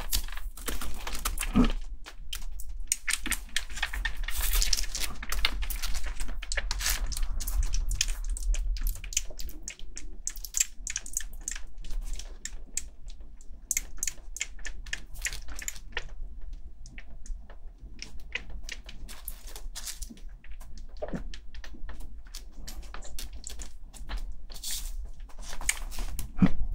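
A newborn kitten suckling on a baby-bottle nipple, making rapid, irregular clicking sounds as it feeds.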